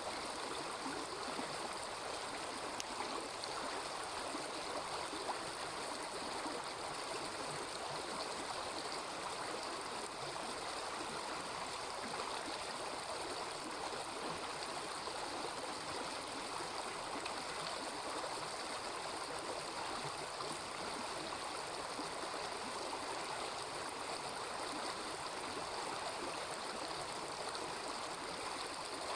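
Small river running: a steady, even murmur of flowing water, with a few faint clicks in the first five seconds.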